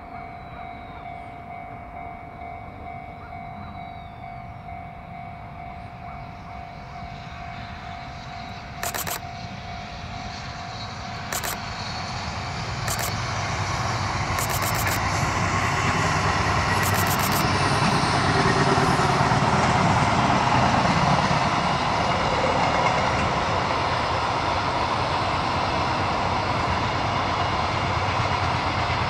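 Electric-locomotive-hauled freight train approaching and passing over a level crossing, its rumble and wheel noise growing loud about halfway through and staying loud. At first a level-crossing alarm rings with a steady pulsing tone, and a few short sharp noises come as the train nears.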